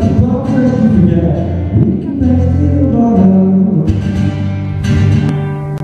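Acoustic guitar strummed in chords while a man sings along, played live through the PA.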